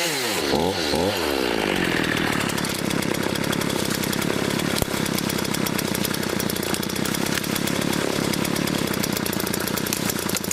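Homelite chainsaw revving down and back up, then held at high speed in a steady, fast-pulsing run, dropping off right at the end.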